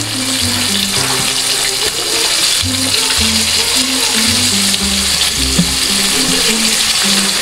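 Coated chicken pieces deep-frying in a pot of hot oil: a loud, steady sizzle and crackle. Background music with a changing bass line plays underneath.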